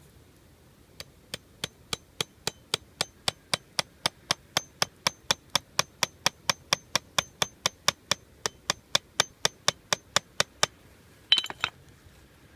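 Steady hammering, about four sharp strikes a second, with a quick flurry of strikes near the end.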